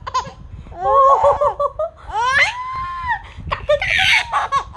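Baby laughing in several bursts: quick pulsed giggles about a second in, a long high-pitched squeal around two seconds in, and a breathy shriek near the end.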